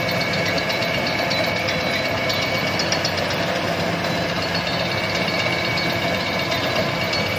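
Rice combine harvester running steadily: an even engine drone with a light mechanical rattle.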